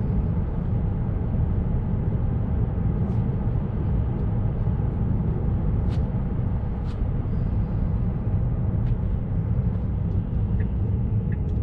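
Road and tyre noise heard inside the cabin of a Tesla electric car cruising at about 36 mph, a steady low rumble with a few faint clicks.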